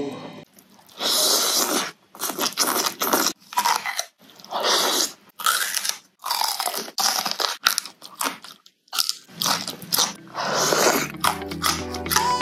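Close-up crunching bites and chewing of raw vegetables (bitter gourd, long bean): a string of loud, crisp crunches with short pauses between them. Intro music starts near the end.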